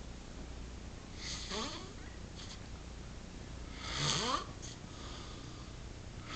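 Snoring: two snores about two and a half seconds apart, the second louder, each a noisy rasp with a tone that rises steeply in pitch.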